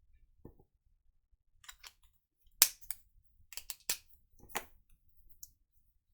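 A few sharp clicks and taps of craft tools being handled on a desk, the loudest about two and a half seconds in and a quick cluster of smaller ones just after.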